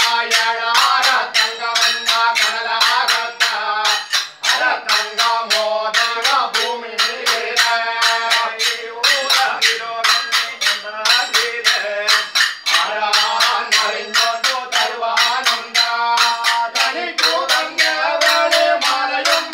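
Male voices singing Thottam pattu, the Kerala temple ritual song, in a chanted melody. A fast, steady beat of sharp percussive strikes runs under the singing, about four a second.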